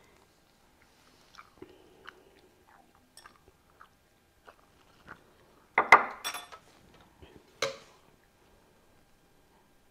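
Eating at the table: soft chewing with scattered light clicks of chopsticks and utensils against bowls, and a louder clatter of utensils clinking on dishes about six seconds in, with one more clink shortly after.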